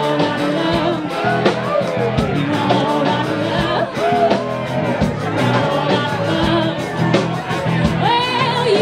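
Live rock band playing a cover song: a sung lead vocal over bass and guitar, with a steady drumbeat.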